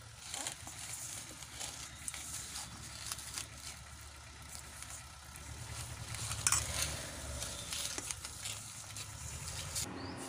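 A bare hand squishing and turning pieces of fish in a wet spice marinade in a steel bowl: a steady, crackly squelching made of many small wet clicks, a little louder about six seconds in.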